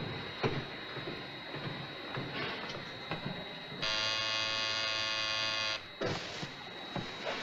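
An electric buzzer, as on a train compartment door, sounds for about two seconds and cuts off abruptly, a steady flat buzz. Before it come a few soft knocks and rustles.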